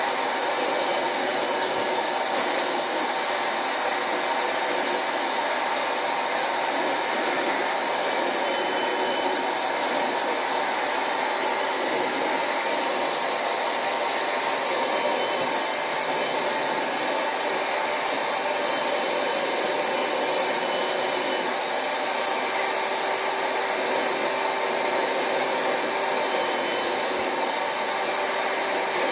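Rug Doctor carpet extractor running steadily, its vacuum motor sucking rinse water out of mattress fabric through the upholstery hand tool.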